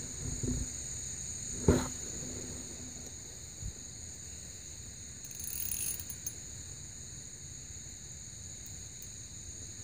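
Steady high-pitched chorus of insects, with a single sharp knock a little under two seconds in.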